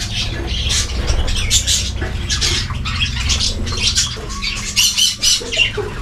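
A flock of budgerigars chattering, a dense run of short, rapid squawks and chirps, over a low steady hum.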